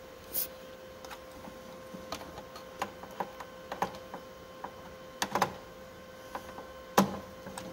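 Scattered small clicks and taps of a screwdriver and parts being handled inside a Mimaki UV printer's metal frame, with a brief hiss about half a second in, a quick cluster of clicks past the middle and the loudest click near the end.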